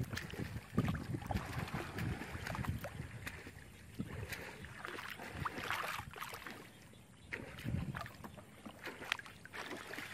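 Shallow muddy water sloshing and splashing irregularly as hands grope through it, feeling for fish.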